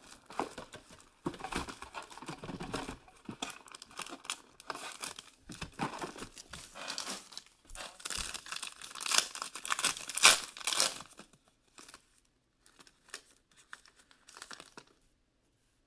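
Trading-card packaging being torn open: first the box, then a foil Contenders Optic pack crinkling and tearing, loudest about nine to eleven seconds in. A few faint rustles and clicks follow as the cards are slid out.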